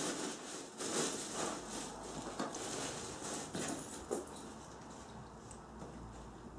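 Tools being packed back into a tool bag: rustling with scattered light knocks and clicks, busier in the first few seconds and then dying down.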